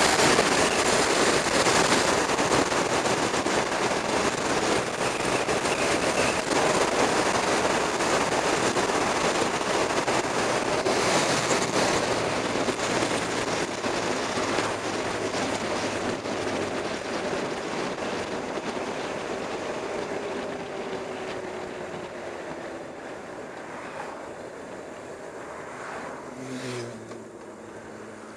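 Wind rushing over the microphone of a camera on a moving motorcycle, with the engine faint beneath it; the rush fades steadily as the bike slows. Near the end the engine note rises briefly.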